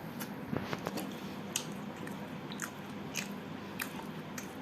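A person chewing a mouthful of butter chicken dipped in gravy, close to the microphone, with irregular soft wet clicks and smacks of the mouth.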